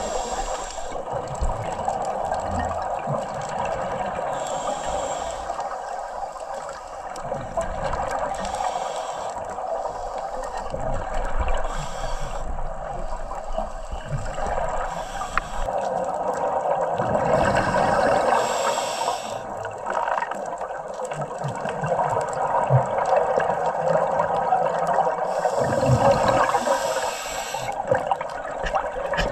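Underwater recording of a scuba diver's regulator: a gurgling rush of exhaled bubbles several times, a few seconds apart, over a steady underwater hiss.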